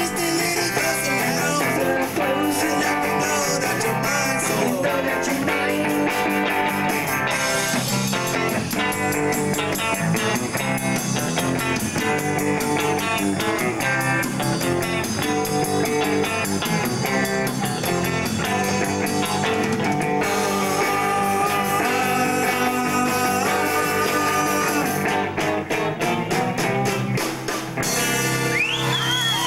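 Amateur rock band playing live: distorted electric guitars, bass guitar and a drum kit with cymbals, at a steady beat. Near the end the music breaks off and voices whoop and cheer.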